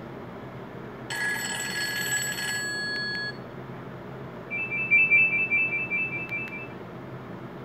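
Nokia E72 ringtones playing through a Nokia 150 phone's speaker: a short, bright, many-toned chime with one tone held a little longer about a second in, then a fast trilling ring of two high alternating tones, like an old telephone bell, a few seconds later.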